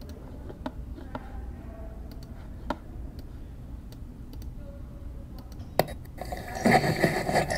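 Gymnasium ambience: a steady low hum with a few scattered sharp knocks, then people's voices coming in from about six seconds in.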